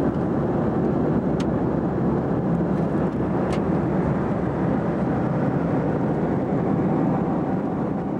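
Airliner cabin noise: the steady rush of a jet plane in flight heard from inside the cabin, with two faint ticks.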